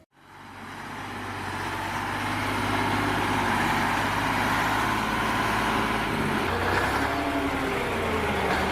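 A heavy vehicle's engine running steadily, fading in from silence at the start; its note shifts slightly about six and a half seconds in.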